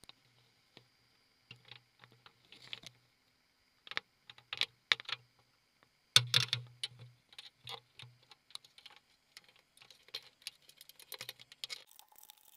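Irregular clicking and tapping of crabs' shells, claws and legs knocking against a crab trap and the camera, with a few duller knocks. The clicks come in uneven clusters, loudest a little past six seconds and crowding together near the end.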